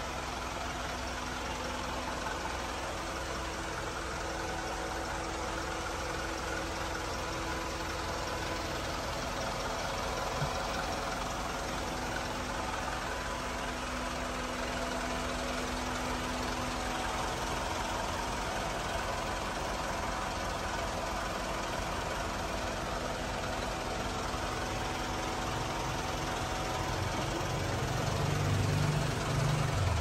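Turbo-intercooled diesel engine of a Mitsubishi Colt Diesel truck idling steadily, with a diesel knock. The low rumble grows louder for the last few seconds.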